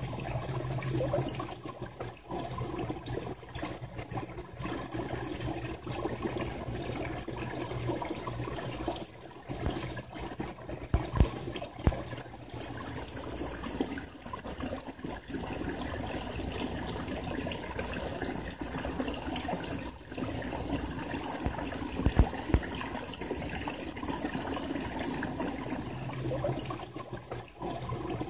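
Small backyard pond waterfall splashing steadily over stacked rocks into the pond, picked up through the LG G3 phone's faulty microphone. A few brief low thumps come about eleven seconds in and again about twenty-two seconds in.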